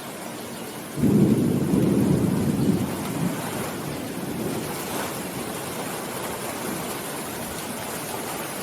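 Steady rain with a roll of thunder that breaks in about a second in, rumbles loudest for about two seconds, then slowly dies away under the rain.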